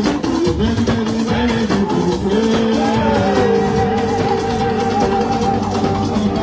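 Live band music with a steady beat, guitar and sung or held melodic lines.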